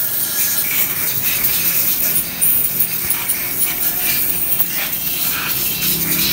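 Compressed-air spray gun with a red siphon cup hissing steadily as it blasts onto an opened motorcycle engine casing, with scattered clicks and rattles of metal.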